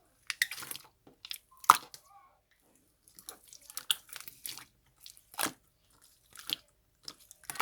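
Slime being mixed and squeezed by hand, giving irregular clusters of sharp crackling clicks and squishy pops, the loudest about a second and a half in.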